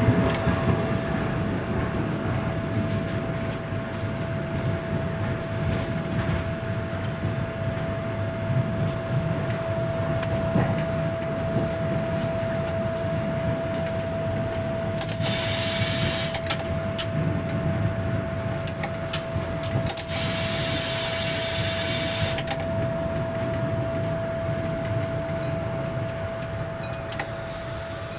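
Diesel railbus, a DR class 772 'Ferkeltaxe', running along a branch line: a steady rumble of engine and wheels on the rails under a constant high tone. Two hissing bursts a few seconds apart come in the middle.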